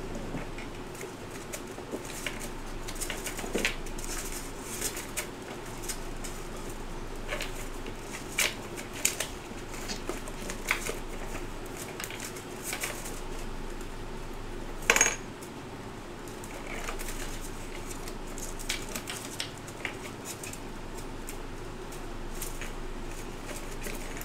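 Small metal hand tools clicking and clinking on a repair workbench as they are handled, in irregular light taps with one louder clink about fifteen seconds in, over a steady background hum.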